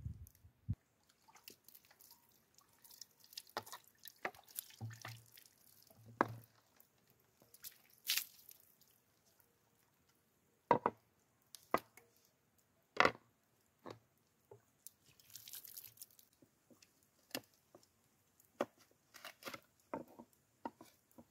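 Close-up handling of a wooden plate. A knife scrapes and taps on it while fish is cut. Water from a plastic bottle then splashes and drips onto it as it is rinsed and rubbed clean by hand, with scattered sharp clicks and knocks throughout.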